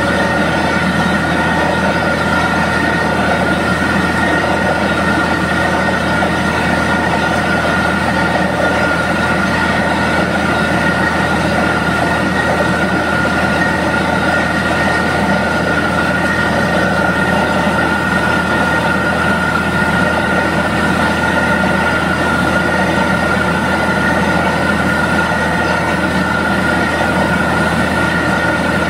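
Borewell drilling rig running steadily as the drill pipe turns in the hole, with muddy water and rock cuttings spraying out around the pipe. A steady high whine sits over the constant machine noise.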